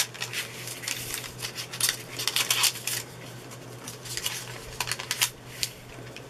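Thin clear plastic cover of a diamond painting canvas crinkling and crackling as hands press and smooth its cut strips back down onto the canvas, in a quick irregular string of crackles.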